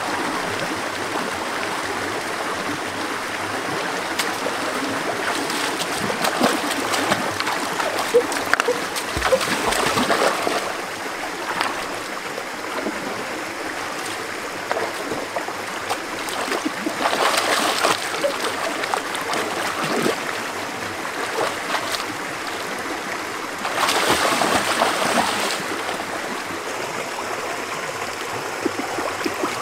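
Water running steadily, with a few louder bouts of splashing: a long one about a quarter of the way in, a short one past the middle, and another a few seconds later.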